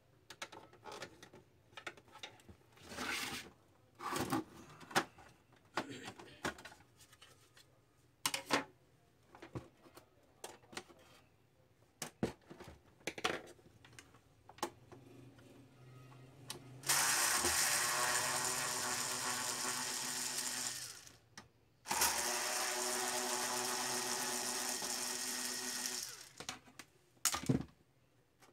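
Scattered clicks and knocks of parts being handled, then a small motor runs twice, about four seconds each time, with a brief pause between.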